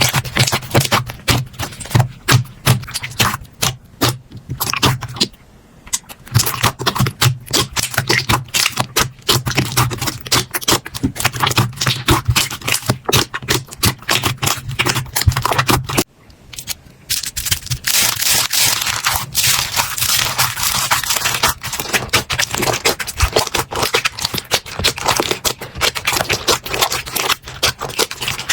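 Slime being squeezed and pressed by hand, giving a dense run of sticky clicks and crackles. About halfway through it changes abruptly to a denser, hissier crackling.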